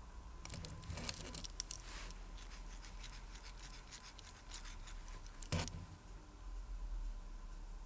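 Small watchmaker's tools clicking and scratching against a watch movement and case parts: a flurry of light clicks in the first two seconds, scattered ticks, then a sharper single click about five and a half seconds in, over a faint steady hum.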